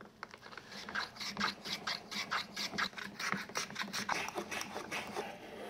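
Small hand plane taking quick, short strokes across wood, a rapid series of brief shaving scrapes, trimming a CA-glued wood patch flush with the board's corner.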